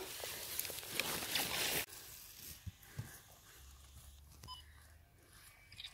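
Rustling handling noise from a handheld camera for nearly two seconds, then a quiet outdoor background with a few faint clicks.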